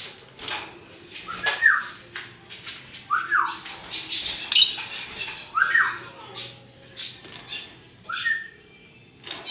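Lovebird calls: a rapid run of short, sharp chirps, with four louder squawks that fall in pitch, about two seconds apart.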